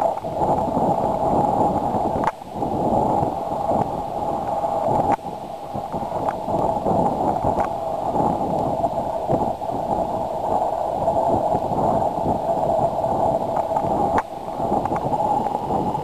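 Wind buffeting the camera microphone: a rough, steady rumble that drops away briefly three times.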